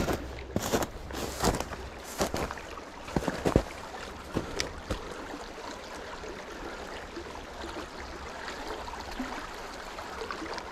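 Footsteps crunching through snow and dry grass for the first three or four seconds, then the steady babble of a small, shallow stream running over stones.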